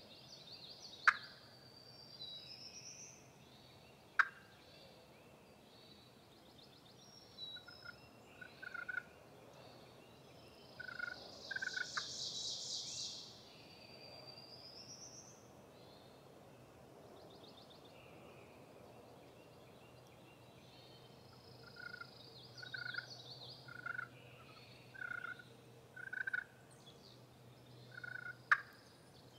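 Wild turkey calling: several runs of short, evenly spaced yelping notes and a louder rapid rattling call about eleven to thirteen seconds in. A few sharp clicks are scattered through.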